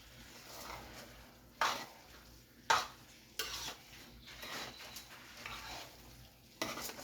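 A spoon stirring rice in a big cooking pot, with a few sharp knocks and scrapes against the pot.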